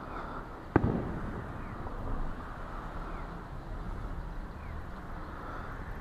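An aerial firework shell bursting with one sharp boom just under a second in, followed by a short echoing tail.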